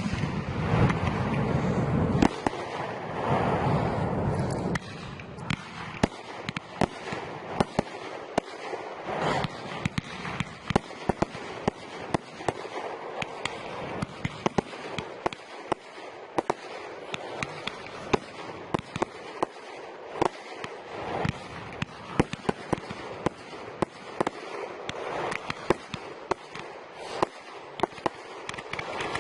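Aerial fireworks display: many sharp bangs and pops in quick succession, with a heavier low rumble of bursts in the first few seconds.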